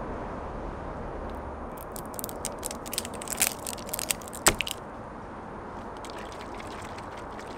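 Plastic shrink-band seal being torn and peeled off a bottle cap: a run of crinkly crackles and snaps lasting about three seconds, ending in one sharp snap. Fainter clicks follow as the bottle is handled.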